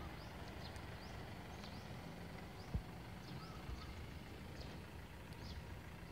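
Quiet outdoor ambience: small birds chirping now and then over a low rumble, with a single soft thump about three seconds in.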